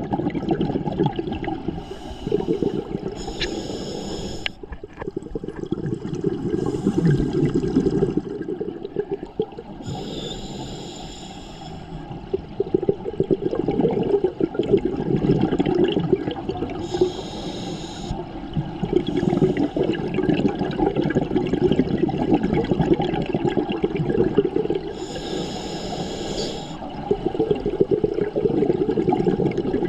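Scuba breathing heard underwater through a demand regulator: about five short hissing inhalations, several seconds apart, alternating with the longer low bubbling rush of exhaled air.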